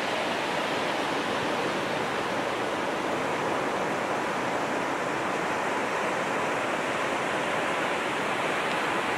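Ocean surf breaking on a beach, a steady wash of noise that cuts off suddenly at the end.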